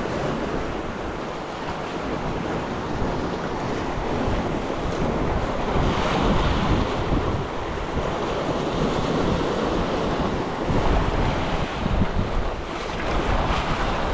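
Mediterranean sea waves washing against the shore, with wind buffeting the microphone in uneven low gusts.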